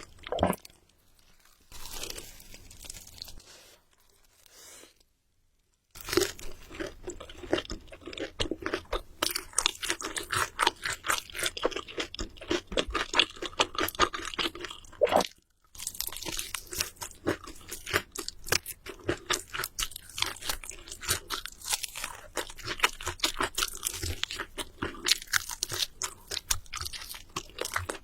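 Close-miked biting and chewing of crunchy food, a dense run of crisp crunches, with a quiet stretch early on and one brief break about halfway through.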